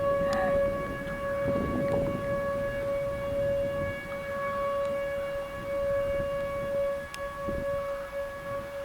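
Outdoor tornado warning siren sounding a steady tone with several overtones, the pitch held level throughout, signalling a tornado warning.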